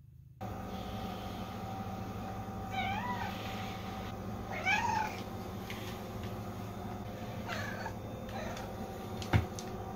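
A domestic cat meowing three times, short calls that rise and fall in pitch about three, five and seven and a half seconds in, the last one fainter, over a steady background hum. A sharp click near the end.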